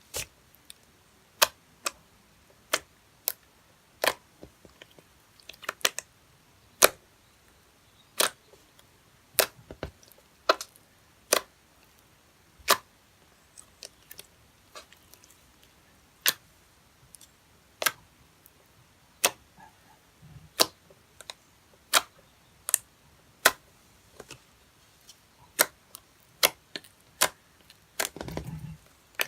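Sharp clicks and pops of PVA fake-blood slime being squeezed and stretched by hand, coming irregularly about once or twice a second, with a duller, longer squelch near the end.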